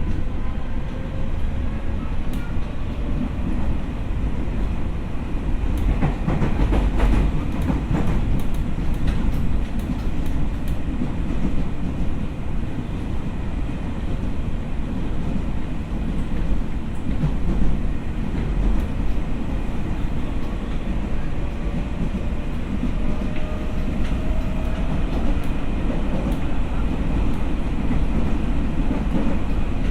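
Ex-Tokyo Metro 6000 series electric train running, heard from inside the car: a steady rumble of wheels on track. There is a cluster of clicks from about six to eleven seconds in, and a faint rising whine near the end.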